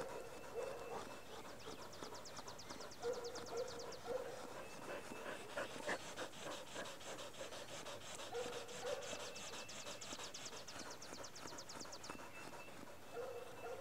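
Dogs panting, with several short, rising whining cries. A fast, high, even ticking comes in two spells, one early and one in the middle.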